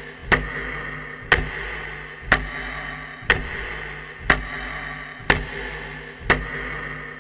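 Clock-style ticking sound effect, one sharp tick about every second, counting down a guessing pause.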